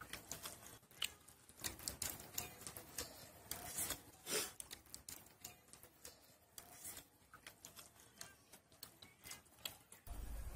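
Faint, irregular clicks and taps of hands and fingers against steel plates and bowls while eating rice by hand. A low rumble sets in near the end.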